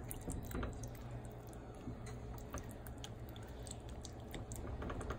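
A spatula stirring thick meat sauce in a skillet: wet squishing with small, irregular clicks as it scrapes the pan, over a steady low hum.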